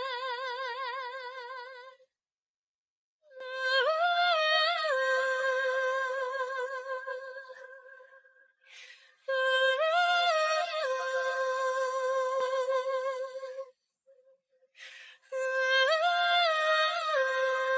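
A singer's high wordless vocalise: three matching phrases, each a quick rise and fall in pitch and then a long held note with vibrato, with short silences between them.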